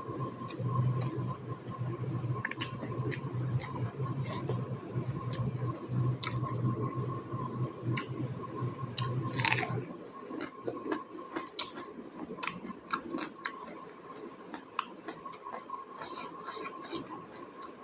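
Close-miked eating sounds: wet chewing, smacking and crunching of buffalo innards curry, with many short mouth clicks and one louder noisy burst about halfway through. A faint steady tone runs underneath, and a low hum stops about halfway.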